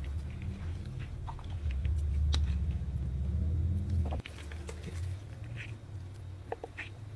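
Hands squeezing and handling a squishy stress-relief toy: scattered small sticky clicks and crackles over a steady low rumble, which swells for a couple of seconds in the middle and drops off suddenly.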